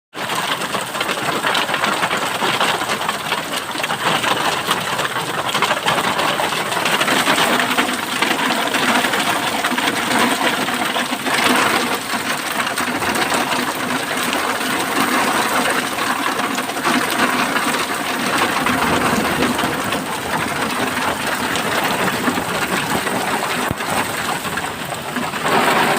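Heavy rain with hailstones falling, a dense steady clatter of many small impacts.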